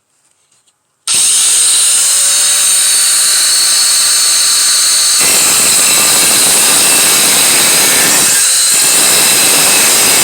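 Angle grinder cutting sheet steel: it starts suddenly about a second in and runs loud and steady with a high hiss, growing harsher about halfway through, with a brief dip near the end.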